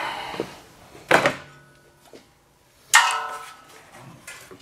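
Metal battery-tray brace clanking against the steel of the engine bay as it is set in place: two sharp, ringing clanks about two seconds apart, then a faint tap near the end.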